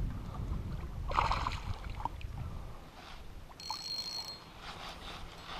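A hooked largemouth bass splashing at the surface beside a bass boat as it is reeled in on a spinning rod, over a low rumble of water against the hull; a short splash about a second in and a brief high whir from the reel near the middle.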